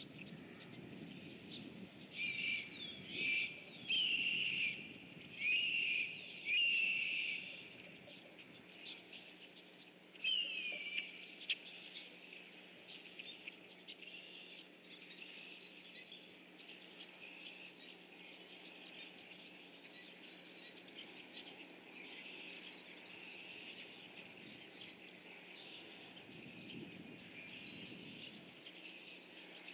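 A flock of blackbirds calling as they fly by. A run of about five louder harsh calls comes in the first seven seconds and a couple more about ten seconds in, over a continuous chatter of many birds.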